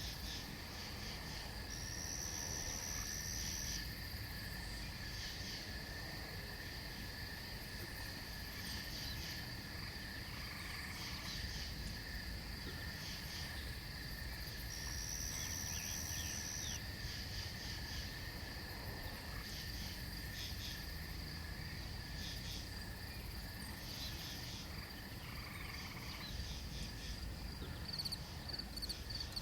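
Night chorus of crickets and katydids: many steady, high, pulsing trills overlapping. A louder buzzing call comes in twice, about 2 s and 15 s in, and quick pulsed chirps come near the end.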